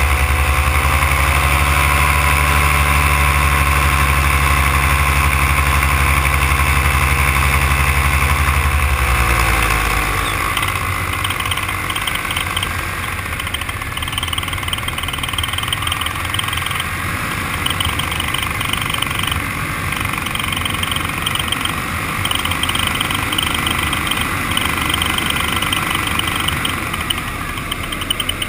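Paramotor engine running steadily at cruise power, then throttled back about nine seconds in, its pitch falling away. After that, wind rushes over the microphone in flight.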